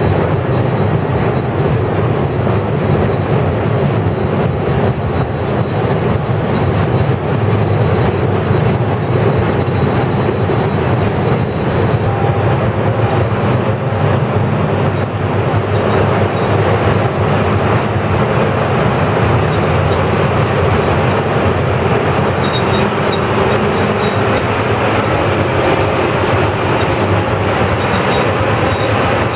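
Potato cellar conveying and sorting line running: a loud, steady mechanical rumble of belts and rollers carrying potatoes into storage. A few faint, short high squeaks come in the second half.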